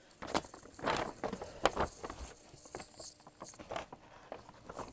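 Brown paper gift bag rustling and crinkling as hands dig through it, with irregular sharp crackles.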